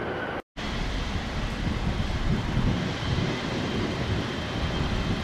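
Jet engines of a taxiing Boeing 777 freighter, a steady rumble with a faint high whine. The sound breaks off for a moment about half a second in.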